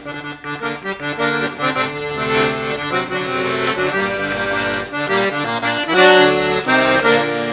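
An accordion playing a lively folk melody over chords, its notes changing quickly, getting louder about six seconds in.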